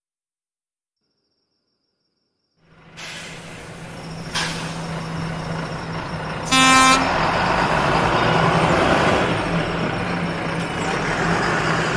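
Silence for the first couple of seconds, then a bus engine running, with a click and one short honk of its horn in the middle.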